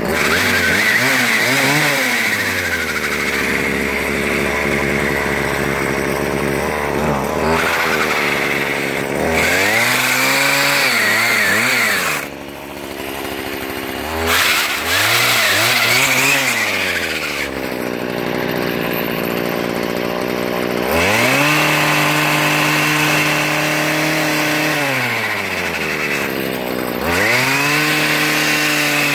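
Gas string-trimmer engine driving a pole-saw chain attachment, revved up and down repeatedly between idle and high speed, with a longer hold at high revs about two-thirds of the way through.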